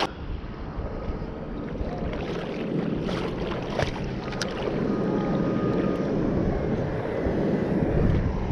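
Wind buffeting the microphone outdoors by the water: an uneven rumbling noise that grows a little louder over the second half, with a few faint clicks.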